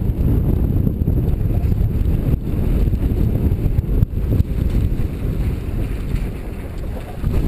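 Wind buffeting the microphone of a camera carried by a skier moving downhill: a loud, unsteady low rumble that eases off a little near the end.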